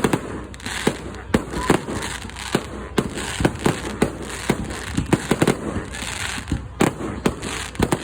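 Fireworks display: a rapid, irregular run of bangs, two or three a second, with crackle between them.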